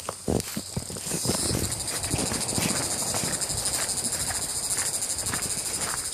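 Insects chirring steadily in a high, finely pulsed band, with scattered low knocks and rustles underneath.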